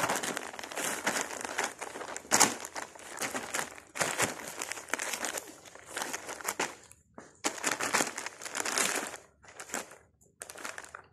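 Thin plastic shopping bag crinkling and rustling in irregular bursts as kittens paw at it and one wriggles around inside it, with short pauses about seven and ten seconds in.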